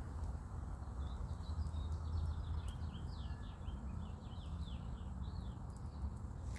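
A songbird singing a rapid run of short, down-slurred high notes over a steady low rumble, with a few faint ticks.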